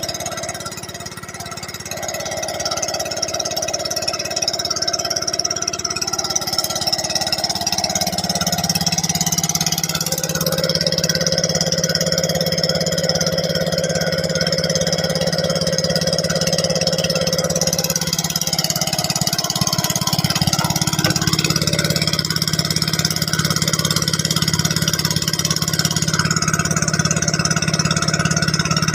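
An engine running steadily, growing louder over the first ten seconds or so, over a steady hiss of rain.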